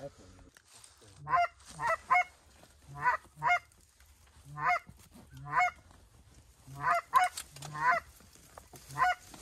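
Goose calling: about a dozen short, high honks, some in quick pairs, spaced roughly a second apart.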